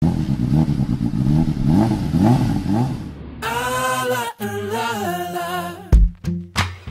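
Soundtrack music: a low sound that rises again and again for about three seconds, then a held sung vocal line, then a drum beat with deep kicks that starts near the end.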